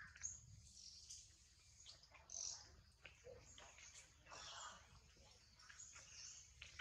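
Near silence, with faint, scattered high bird chirps.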